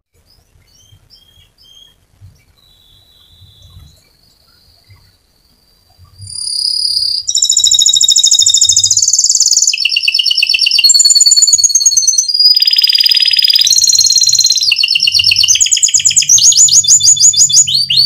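White domestic canary singing: a few soft chirps and a thin whistle, then from about six seconds in a loud, continuous song of rapid rolling trills, each a fast run of repeated notes that switches to a new pitch every second or so.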